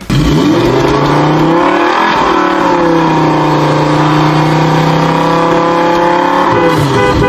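Car engine accelerating as the car drives: its pitch climbs, dips briefly about two seconds in, then holds steady at a high pitch before falling away near the end.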